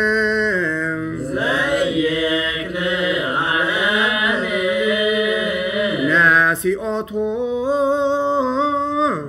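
A single voice chanting a Ge'ez hymn in the Ethiopian Orthodox zema style, drawing out each syllable in long, slowly wavering melismatic notes. There is a brief break about seven seconds in.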